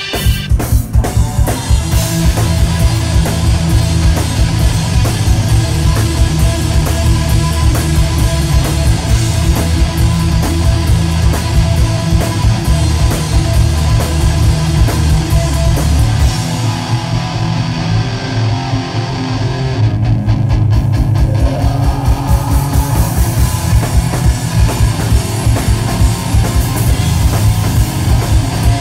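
Heavy metal band playing live: distorted electric guitars, bass guitar and drum kit. A little past the middle the bass and drums drop back for a few seconds, then the full band comes back in.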